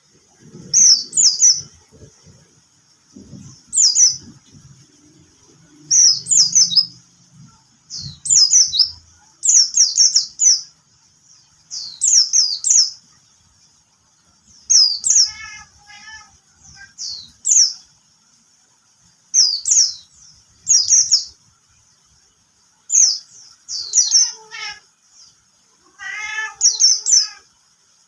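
A songbird singing in short, loud phrases of high, sharp, downward-sweeping notes, one phrase about every two seconds with brief pauses between. Twice in the second half a lower, wavering sound joins in.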